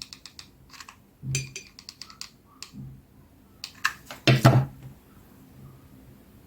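Quick small clicks and taps of a glass jar and craft tools being handled on a tabletop, with a louder burst of handling noise about four seconds in.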